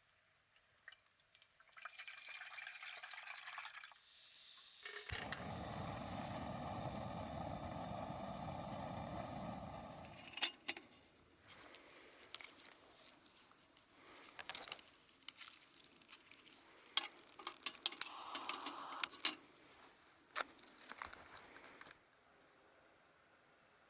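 Liquid pouring for a few seconds, then scattered clicks and small clinks of things being handled.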